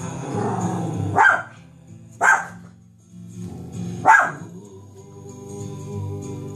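A dog barking three times, about one, two and four seconds in, over a song playing in the background.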